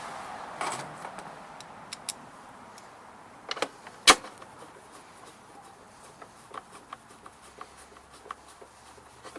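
Scattered clicks and knocks of plastic parts and small metal pieces being handled during reassembly of a backpack blower's recoil starter, with one sharp knock about four seconds in.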